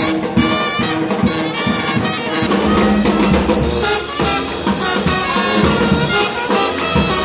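Street brass band playing jazz, with trumpets and trombone over a steady beat.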